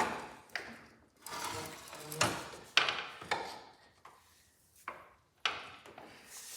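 Irregular metal clunks and scraping as a garden-tractor transmission case is worked into the frame channels: about half a dozen sharp knocks, each with a short ringing tail.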